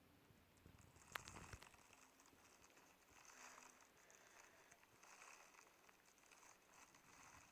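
Slime being handled and squished, making faint, soft crackling and sticky popping sounds, with one sharper click about a second in.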